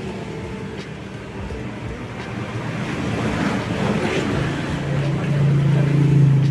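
Yamaha New Vixion's single-cylinder engine running through an Akrapovic aftermarket exhaust, a deep, steady note that grows louder through the second half and peaks near the end.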